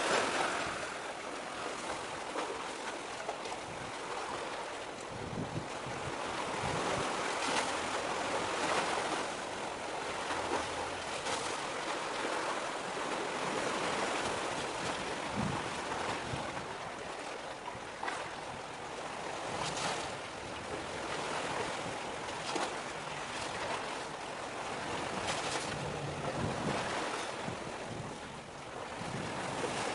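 Sea waves washing steadily, swelling and ebbing, with some wind.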